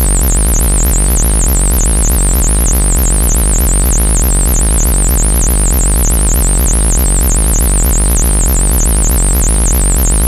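Loud electronic synthesizer sound: a high warbling tone that wobbles rapidly up and down, about four or five times a second, over a steady deep bass hum.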